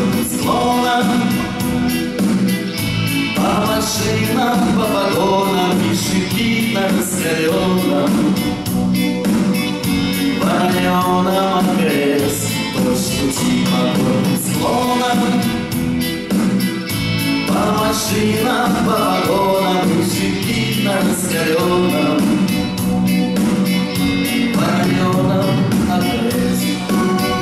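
Live band music: acoustic and electric guitars, bass guitar and keyboard playing a slow song with a steady beat and a lead melody in phrases of about two seconds.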